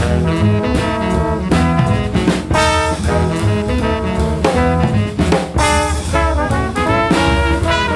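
Jazzy background music: a brass tune over a drum kit.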